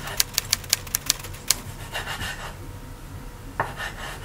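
Kitchen knife slicing cherry tomatoes on a wooden cutting board: a quick run of sharp taps, about six a second, as the blade meets the board. A scrape about two seconds in, then a single tap and scrape near the end.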